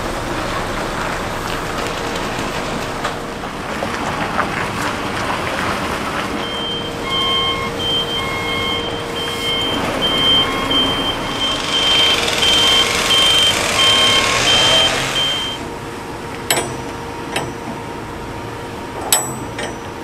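A diesel tractor-trailer hauling a shipping container runs as it manoeuvres. Its reversing alarm beeps evenly, about two beeps a second, for roughly nine seconds in the middle, with a hiss rising under the later beeps. A few sharp metal clanks follow near the end.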